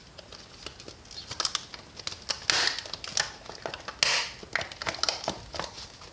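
Packaging being cut and pulled open with a knife: crinkling and crackling, with many small clicks and a couple of louder rustling tears about two and a half and four seconds in.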